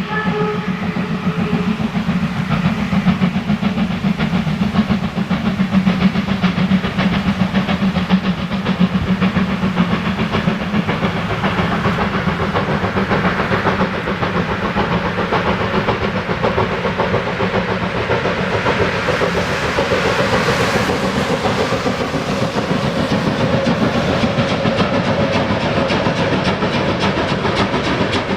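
Class 52 steam locomotive 52 1360 working a train, a steady run of exhaust beats and wheel-on-rail clatter with steam hiss. A whistle blast ends just as it begins.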